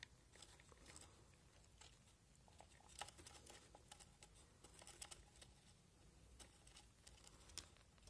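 Near silence with faint, irregular rustles and ticks, a few of them a little louder about three, five and seven and a half seconds in.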